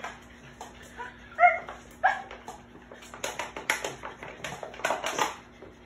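A French bulldog gives two short, sharp yips about one and a half and two seconds in. Then comes a quick run of short noisy snaps and clicks.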